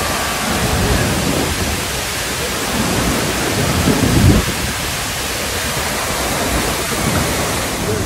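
Tegenungan Waterfall pouring into its plunge pool: a loud, steady rush of falling water that swells briefly about four seconds in.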